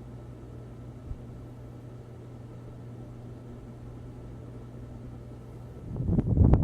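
NuTone Verandah Deluxe ceiling fan motor running with a steady low hum and a faint higher whine, with one small click about a second in. Near the end a loud, gusty rushing noise starts suddenly, like air buffeting the microphone.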